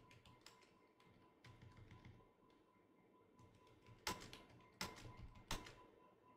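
Faint computer keyboard typing: scattered soft keystrokes, with three sharper key clicks a little over half a second apart from about four seconds in. A faint steady high-pitched tone runs underneath.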